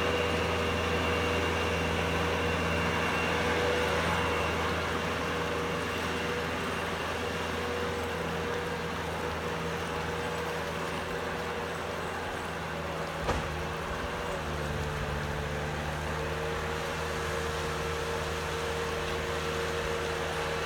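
Heavy snowplow's engine running steadily with a low hum; a single sharp knock a little past halfway, and the engine note shifts to a different pitch just after it.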